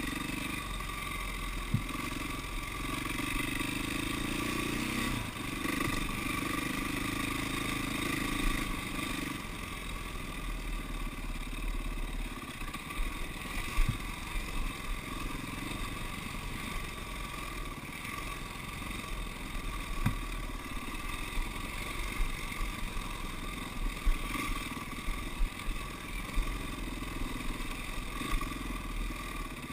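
KTM dirt bike engine running under way on a rough dirt trail, with a few sharp knocks as the bike hits bumps. The engine note is strongest in the first nine seconds or so.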